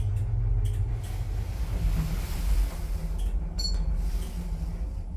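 Rope-traction lift car travelling in its shaft: a steady low rumble and hum of the ride. About three and a half seconds in comes a short high beep from the car's button panel.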